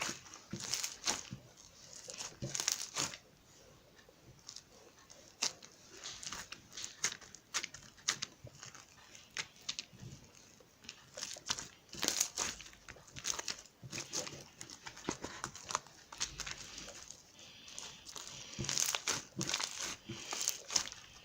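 Slime being squished and stretched by hand, giving irregular crackling and clicking sounds, with a couple of quieter stretches.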